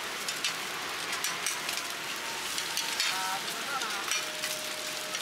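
Eggs frying in oil on a wide flat griddle: a steady crackling sizzle with many small pops.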